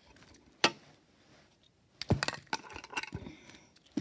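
Tech deck fingerboard clicking and clattering as it is flicked for a kickflip: a single sharp click, then a quick cluster of clicks about two seconds in, followed by lighter ticks.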